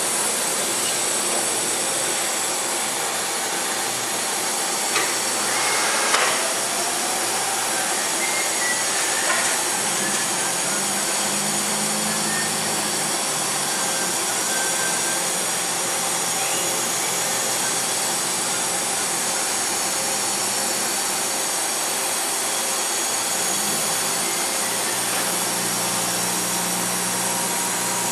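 DMG Mori Seiki DMU 50 five-axis machining center running with a steady hiss and hum as its axes travel to the home position. There are two sharp clicks about five and six seconds in, and low servo-drive tones come and go as the spindle head moves up.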